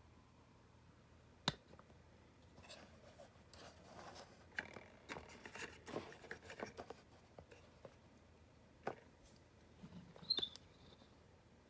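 Small scale-model tanks being handled on a hard surface: a sharp click, then a few seconds of small clicks and scrapes, then a few more isolated clicks.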